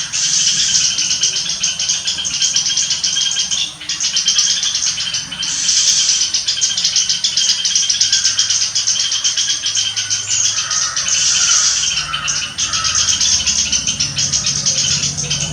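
A flock of small birds chattering loudly, many rapid calls overlapping into a continuous din.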